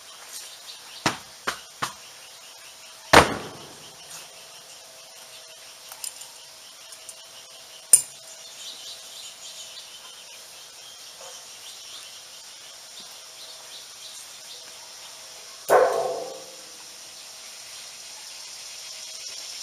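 Hard objects being handled and set down while clearing the old AC site: a few light knocks, a loud ringing clank about three seconds in, a sharp click near the middle, and another loud ringing clank late on.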